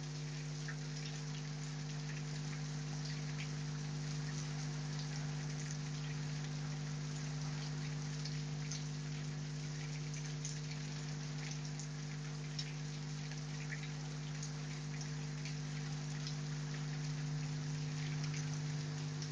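Heavy rain falling steadily, with many individual drops ticking on surfaces, over a steady low hum.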